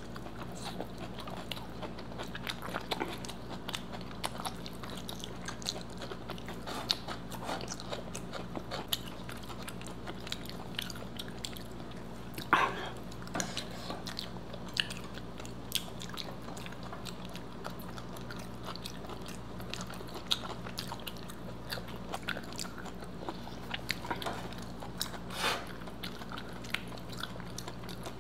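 Close-miked chewing and biting of food, with scattered crunches and wet mouth clicks. One sharper crunch or click comes about halfway through, over a steady low hum.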